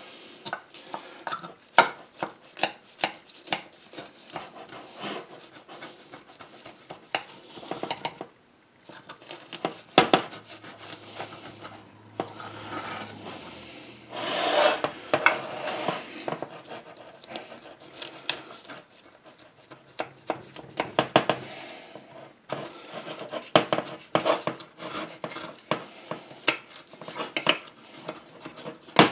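A knife cutting through a taco pie's crushed tortilla-chip topping and baked crescent-roll crust, in many short strokes that click and scrape against the bottom of a glass baking dish. There is a longer scraping stretch about halfway through.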